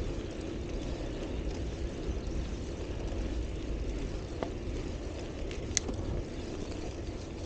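Steady low rumble of wind on the microphone and tyre noise from a moving bicycle, with two short ticks about four and a half and six seconds in.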